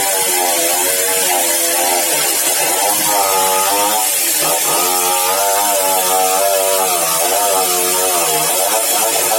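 Sawmill saw machinery running continuously, its pitch wavering up and down, over a steady high hiss.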